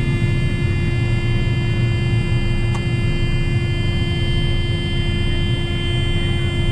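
A combine's warning buzzer sounding one steady, unbroken tone over the steady drone of the combine's engine.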